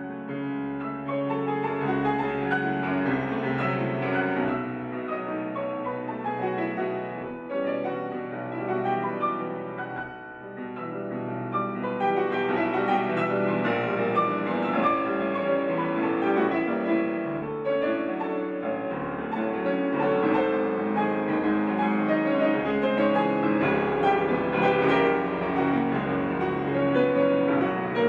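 Solo grand piano playing a loud, dense, virtuoso Romantic piece, with a brief softer dip about ten seconds in before the playing grows louder again.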